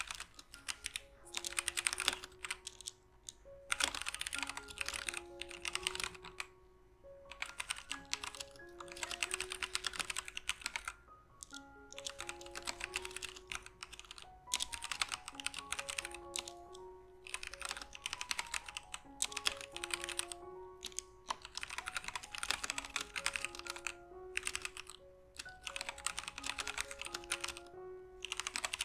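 Womier K66 60% mechanical keyboard with Gateron Brown switches being typed on in bursts of rapid keystrokes with short pauses between them, over background music with a melody.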